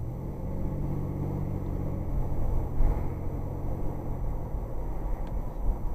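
A car's engine and road rumble heard from inside the cabin while driving. A steady engine tone is strongest in the first two seconds, and a couple of brief thumps come about three and five and a half seconds in.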